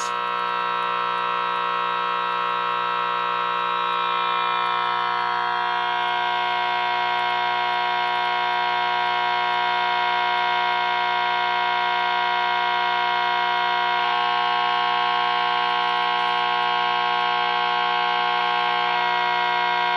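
RCA 9-X-562 tube AM radio giving a steady hum and buzz through its speaker while being powered up at reduced voltage. The owner puts the hum down to an electrolytic capacitor that has probably failed.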